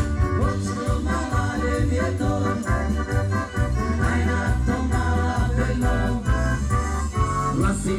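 Live amplified band music with accordion and drum kit, a steady beat and heavy low bass, played through stage speakers.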